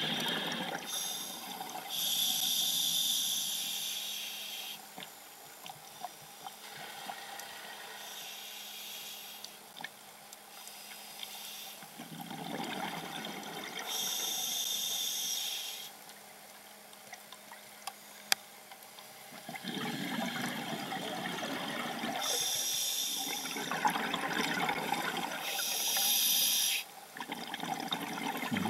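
Scuba breathing through a regulator, heard underwater: a hissing inhale alternating with a bubbling rush of exhaled air, about four breath cycles spaced several seconds apart.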